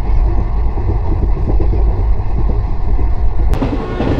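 Passenger express train running at speed, heard from beside an open coach window or door: a steady, loud, deep rumble of the moving train and rushing air. About three and a half seconds in, the sound changes abruptly to a lighter running noise.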